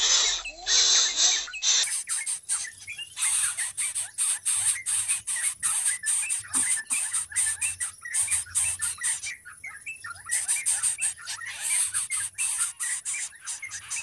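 Greater coucal nestlings begging: dense, rapid clicking and short high chirps over a steady high hiss, with a brief change in the sound's character about two seconds in.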